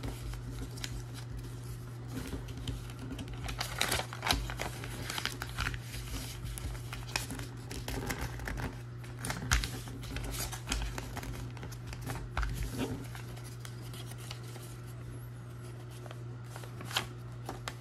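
A sheet of paper being folded into a paper airplane: rustling and crinkling with short, sharp creasing strokes as fingers press the folds flat. The strokes thin out over the last few seconds, leaving one short tick near the end, all over a steady low hum.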